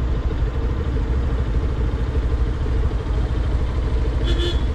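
Motorcycle engine running low and steady in slow, jammed traffic. A vehicle horn gives a short beep near the end.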